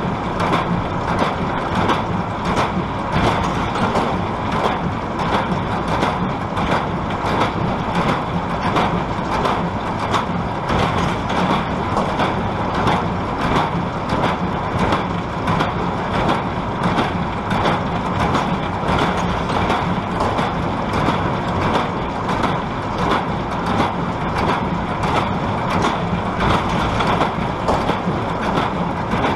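New Holland 570 small square baler running behind a Case IH Maxxum MX100C tractor: the steady drone of the tractor engine under PTO load, with a fast, even knocking from the baler's plunger and drive.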